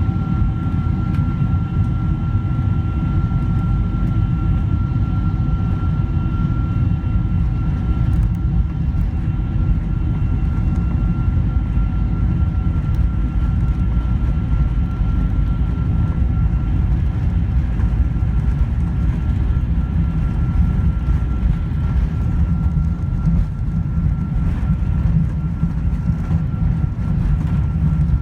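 Steady cabin drone inside a Boeing 747-400: a loud, even rumble of engine and airflow noise, with a faint steady whine above it.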